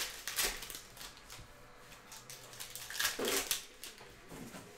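Foil trading-card packs crinkling and tearing open, with cards sliding against each other, in three short rustles: near the start, about three seconds in, and just before the end.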